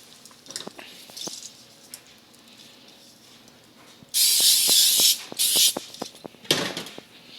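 Aerosol cooking spray hissing in two bursts about 4 s in, the first nearly a second long and the second shorter, each cutting off sharply, among small clicks and knocks of food and utensils being handled.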